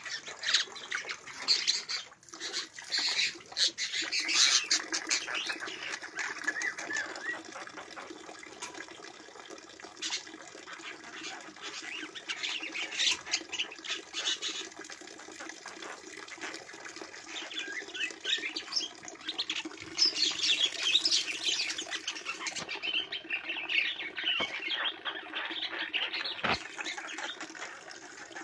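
Several birds chattering and squawking in quick, overlapping calls, busiest at the start and again about two-thirds of the way through, over a steady low hum.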